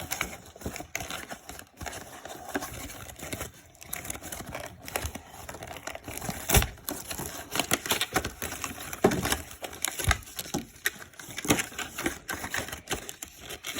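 Packaging of a Rubik's Impossible cube being handled and opened by hand: crinkling with many irregular clicks and taps.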